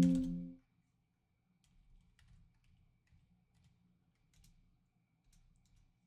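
A steady low pitched tone that stops about half a second in, followed by faint, scattered light clicks and taps of trading cards being handled.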